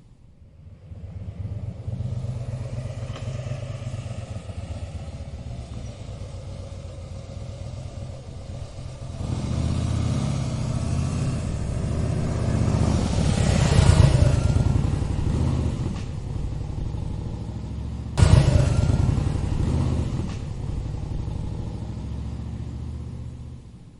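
Harley-Davidson motorcycle's V-twin engine running with a steady low pulsing beat. It gets louder about nine seconds in and swells as it is revved around fourteen seconds. A sudden sharp rev comes about eighteen seconds in, then it settles back and fades out near the end.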